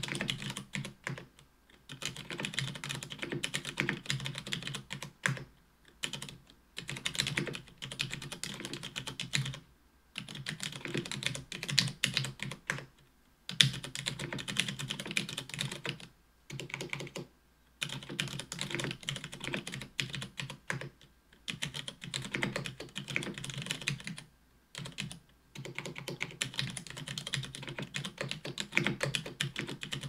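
Mechanical keyboard with stock Cherry MX Brown tactile switches in an aluminium plate, with GMK keycaps and lubed stabilizers, being typed on: fast runs of keystrokes a few seconds long, broken by short pauses.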